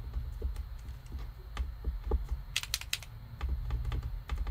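Acrylic paint marker nib pressed down repeatedly on a surface to get the paint flowing, giving irregular small clicks. A quick run of about five louder clicks comes about two and a half seconds in.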